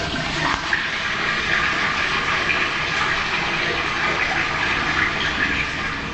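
Toilet flushing: water rushing steadily through the bowl and pipes, easing slightly near the end.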